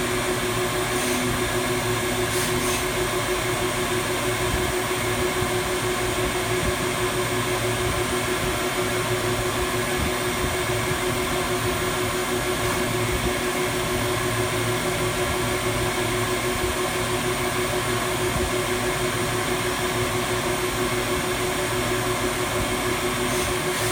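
Cylindrical grinding machine running steadily: a constant hum over an even hiss.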